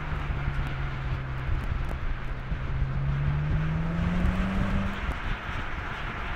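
BMW M5's twin-turbocharged V8 running as the car drives at road speed, its note climbing in pitch as it accelerates for a couple of seconds before dropping out about five seconds in, over steady tyre and wind noise.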